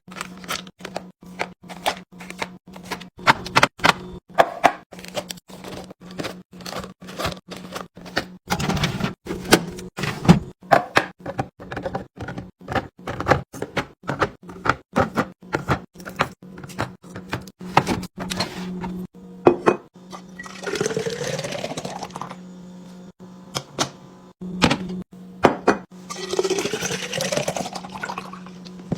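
Plastic containers, lids and bottles clacking and tapping in quick succession as a fridge is restocked. Twice, in the last third, liquid is poured into a container, its pitch rising as the container fills.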